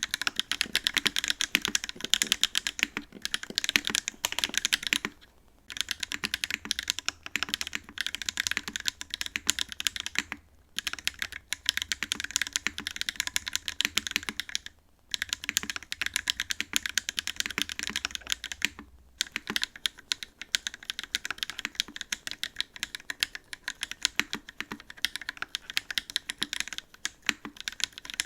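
Fast typing on an MC65 custom mechanical keyboard with Candy Red switches and GMK Cluck keycaps: a dense run of key clacks with brief pauses about five, ten, fifteen and nineteen seconds in.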